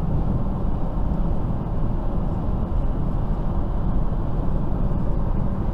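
Steady low rumble of road and tyre noise inside a BMW car's cabin while it cruises at motorway speed.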